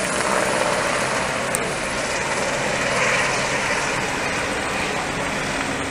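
Helicopter in flight, its rotor and turbine engine giving a steady drone that swells slightly midway as it passes.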